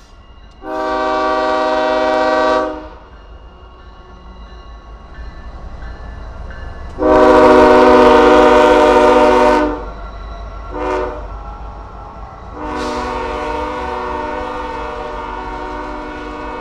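Kansas City Southern freight locomotive's air horn sounding the grade-crossing pattern: two long blasts, a short one, then a long one held on, with the second blast the loudest. Underneath, the diesel locomotives rumble steadily as they pass.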